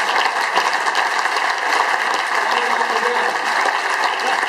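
Audience applauding in a large hall, a steady dense patter of clapping.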